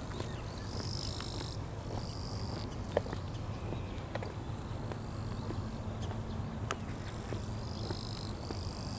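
A chorus of summer insects, high-pitched buzzing trills that start and stop in stretches of about a second, over a steady low rumble, with a few light clicks, the sharpest about three seconds in.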